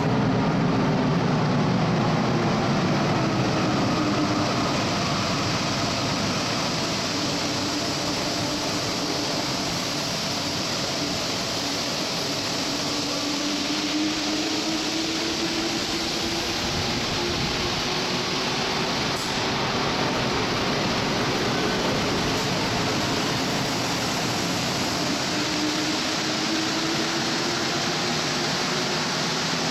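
Santiago Metro Line 2 rubber-tyred train running through the station: a steady rumble and hiss with an electric motor whine that slowly falls in pitch, then rises again in the second half.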